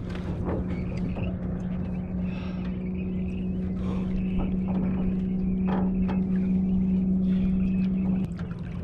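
Steady low electric hum from the boat, cutting off abruptly near the end, with scattered splashes and knocks as a large blue catfish thrashes in a landing net at the side of an aluminum boat.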